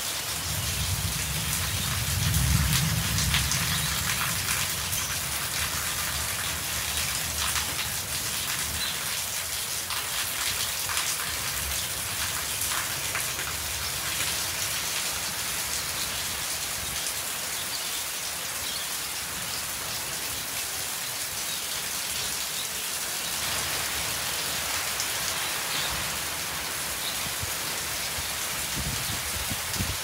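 Steady rain falling on corrugated metal roofs and wet concrete: an even hiss with many separate drops ticking through it. A low rumble swells and fades about two to four seconds in.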